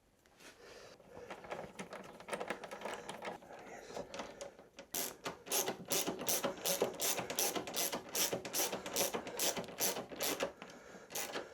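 An even run of sharp ratcheting clicks, about three or four a second for some five seconds, starting about halfway through, as a fastener on the motorcycle is drawn tight; light handling noise comes before it.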